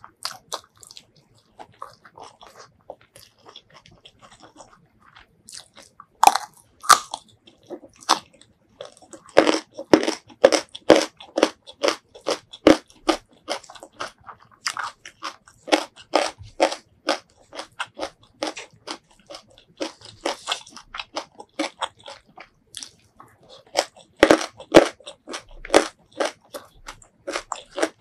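Close-miked eating sounds: soft, sparse mouth and finger noises at first, then quick runs of crisp crunching and chewing bites, with a pause between two runs.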